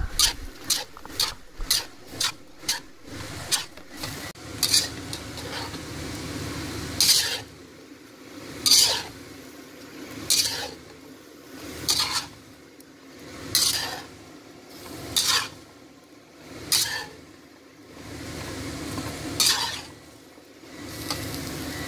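Metal spatula scraping and tossing shrimp and vegetables around a hot wok, with food sizzling underneath. Quick strokes come over the first few seconds, then slower ones about every second and a half.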